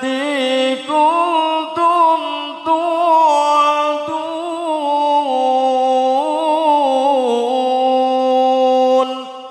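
A man reciting the Quran in the melodic tilawah style into a microphone, drawing out long, ornamented notes that rise and fall, then trailing off near the end.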